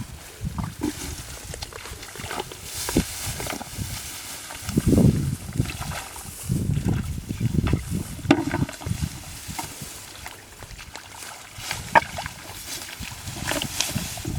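Mud and water sloshing and squelching in irregular low gurgles, with scattered small clicks and splashes, as hands dig through a flooded rice-field mud for fish.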